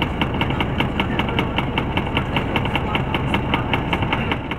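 Tour coach engine running, heard from inside the cabin as a steady low rumble, with a rapid, even ticking of about six or seven ticks a second.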